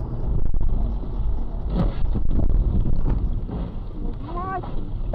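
Car driving on a wet road, heard through a dash camera inside the cabin: a steady low rumble of road and engine noise with a few light clicks. A short voice sounds near the end.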